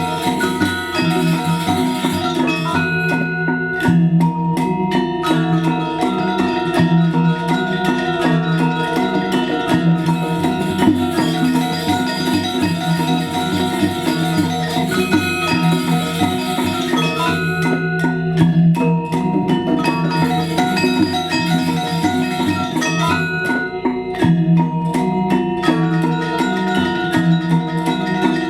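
Balinese gamelan playing: bronze metallophones struck in fast, layered patterns, with ringing tones held over a steady low pulse.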